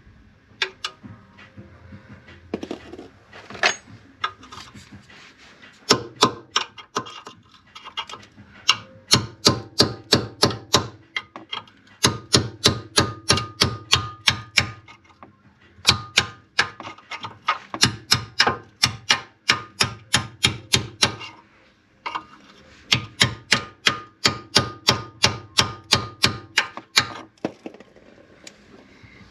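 A hammer driving a chisel against the steel rivet heads that hold a ball joint to a car's front lower control arm, knocking them off. The blows are sharp and metallic, a few single taps first, then runs at about four a second with short pauses between the runs.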